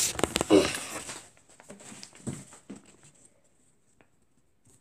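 Handling noise: rustling and light clicks from a camera and a paper airplane being picked up and moved, with a brief vocal sound about half a second in. It thins out to a few faint clicks and is near silent for the last second and a half.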